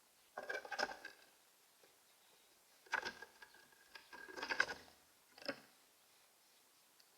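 Common grackle pecking and scrabbling at seed on the feeder, heard close up from inside the feeder: four short bursts of tapping and rattling with quiet between.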